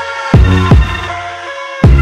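Electronic background music with a heavy bass line: two deep bass-drum hits in quick succession about a third of a second in, over sustained synth chords.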